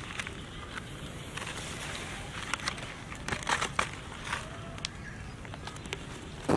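Thin clear plastic bag crinkling and crackling in irregular bursts as a baby macaque grips and chews it, thickest around the middle.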